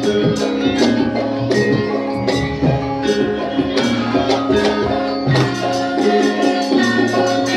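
Live Javanese music from an instrumental passage: held pitched notes over steady, regular percussion strokes.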